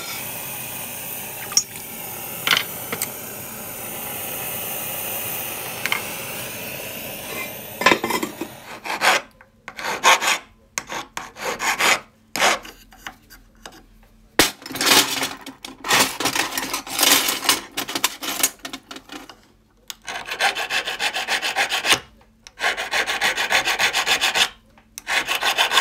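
Hand filing of a gold bangle with a needle file against a wooden bench pin: repeated rasping strokes, each about a second long, with short pauses between them. Before the filing starts, about eight seconds in, there is a steady hiss.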